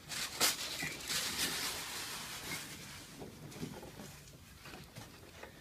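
Rustling and shifting of a person turning over onto his stomach on a padded chiropractic treatment table, with a sharp knock about half a second in. The movement noise fades after the first couple of seconds.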